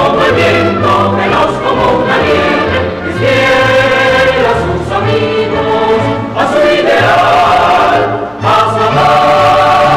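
Choir and orchestra performing a television theme song: the choir sings long notes over a low orchestral bass line and settles on one held chord near the end.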